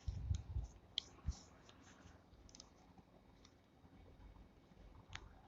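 Handling noise and light plastic clicks from a beard trimmer's guard comb being taken off and fitted: soft bumps at the start, then scattered small clicks, with a sharper click about a second in and another near the end.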